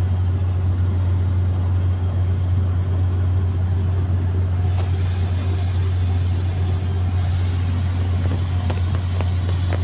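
Hyundai H1 van driving steadily at speed, its engine and road noise making a constant drone with a strong, unchanging low hum.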